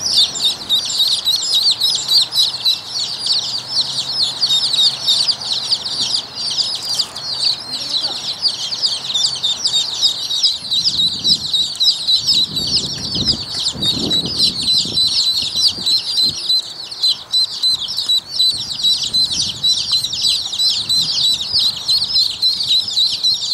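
A brood of Rouen ducklings peeping continuously, many short high-pitched calls overlapping.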